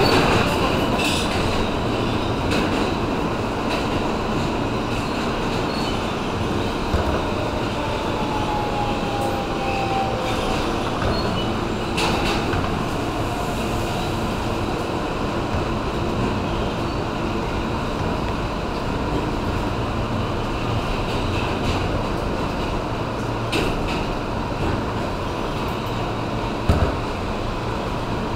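R160B subway car running at speed through a tunnel, heard from inside the car: a steady rumble of steel wheels on rail with scattered clicks over rail joints and one sharper knock near the end.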